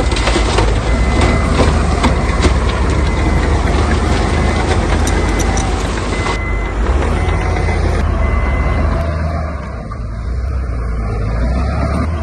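Heavy diesel construction machinery running with a steady low hum, its reversing alarm sounding in repeated short beeps. A rattling, clattering noise sits over the engine until about halfway, then eases off.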